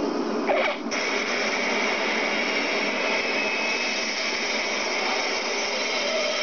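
Jet engines of a large military transport aircraft running with a steady whining rush, which breaks off briefly just under a second in.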